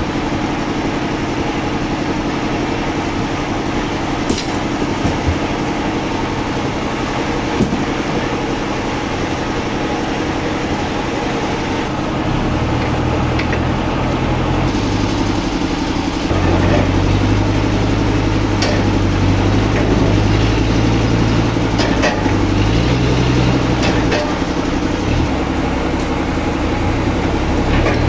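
Forklift engine running, revving up from about halfway through with a few rises and falls in pitch as it pushes against a huge log. A few sharp knocks sound now and then.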